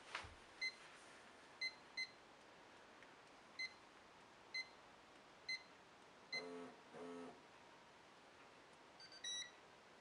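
Miele Scout RX3 robot vacuum beeping as its control buttons are pressed to set the clock: about seven short high beeps, one per press, a pair of longer, lower tones about six and a half seconds in, and a brief higher chime near the end as the time is confirmed.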